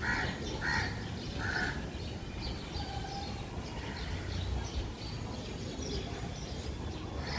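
Birds calling: a run of short, repeated calls in the first two seconds, then fainter chirps, over a steady low background rumble.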